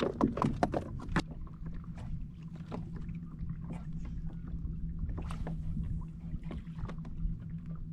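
Boat motor running with a steady low hum as the boat moves to a new spot, with a few clicks and knocks in the first second or so.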